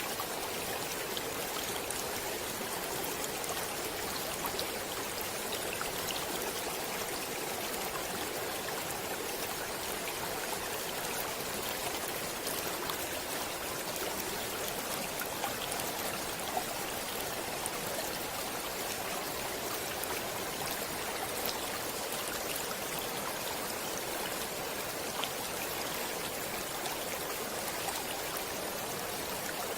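Stream water flowing and babbling steadily, with small splashes and drips scattered through.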